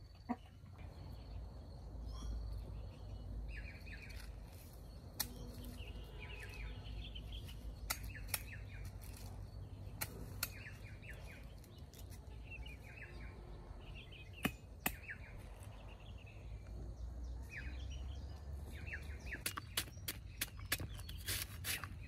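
Birds chirping in short bursts every few seconds, with scattered sharp clicks and a dense run of clicks and knocks near the end.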